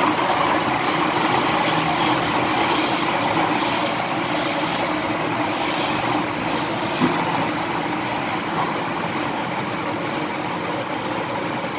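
MTR M-Train running through a tunnel, heard from inside the car beside the doors: a steady rumble of wheels and running gear with a few brief high-pitched sounds in the first half, easing off slightly in the last few seconds.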